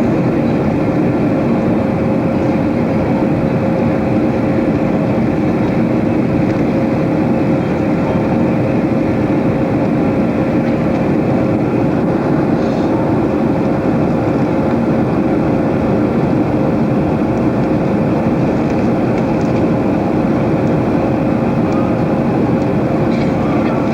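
Jet airliner cabin noise: the engines and airflow running steadily as a dense roar with a constant hum tone, the same level throughout.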